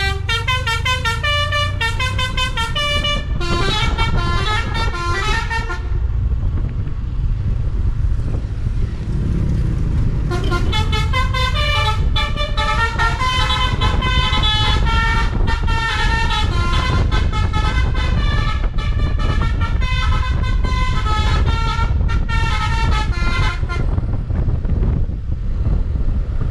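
Basuri V3 telolet bus horn playing quick tunes of rapidly changing horn notes. It stops about six seconds in and starts again around ten seconds in, continuing until a few seconds before the end, over a steady low rumble.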